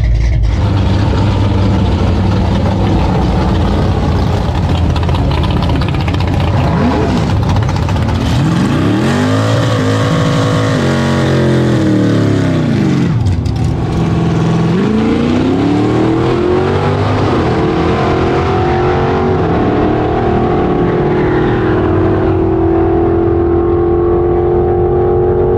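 Loud car engine revving and accelerating: the pitch swings up and down twice around the middle, then climbs slowly and steadily toward the end as the car pulls away hard.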